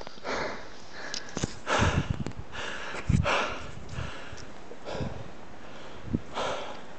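A hiker breathing hard while walking, with about five loud breaths roughly a second and a half apart. Short thumps of footsteps on rock come between them.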